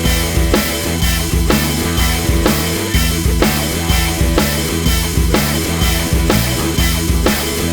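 Rock music with distorted guitar, bass and a drum kit keeping a steady beat.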